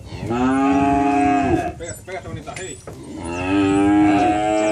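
Cattle mooing: two long moos, the first lasting just over a second, the second starting about three seconds in.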